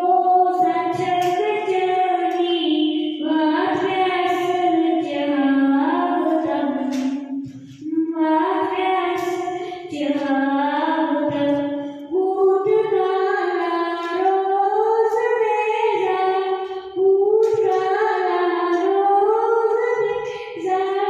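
A boy singing a song into a microphone in long held phrases that rise and fall in pitch, with brief pauses for breath between them.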